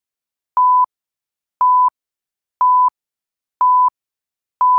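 Electronic workout-timer beeps at one steady pitch: four short beeps about a second apart, then a longer fifth beep. This is the countdown that ends the rest period and starts the next circuit.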